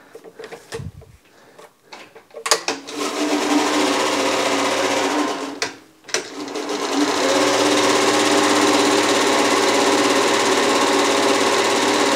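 Toro Greensmaster eFlex battery-electric reel mower running, with a steady electric-motor whir that has several even tones, after a few handling clicks. It starts about two and a half seconds in, cuts out just before six seconds, and starts again a moment later.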